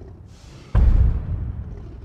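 A brief whoosh, then about three-quarters of a second in a sudden deep boom that dies away over about a second: a heavy impact hit used as a sound effect.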